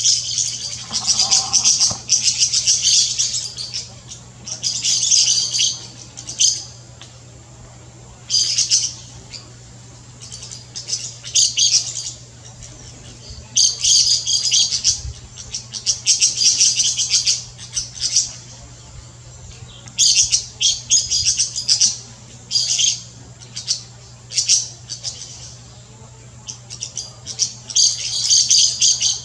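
Golden-winged parakeets chattering: bursts of rapid, high-pitched shrill notes, each burst lasting a second or two and recurring every few seconds.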